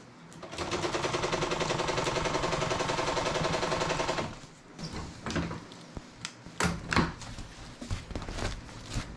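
Vintage portable electric sewing machine running fast and steadily for about four seconds, stitching the edge of a thick quilted foam-and-canvas sunshade. It stops abruptly, followed by rustling and a few knocks as the stiff sunshade is handled and pulled away from the machine.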